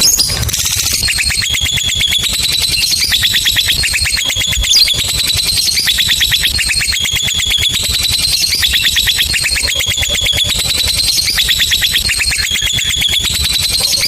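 Lovebird giving a long, unbroken ngekek: a rapid, shrill chattering trill that shifts pitch in repeated phrases of about a second each.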